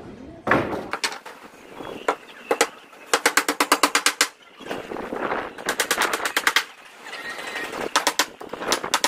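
Hammer nailing the plywood sheets of a stair formwork: several quick runs of sharp strikes, many to the second, with short pauses between runs.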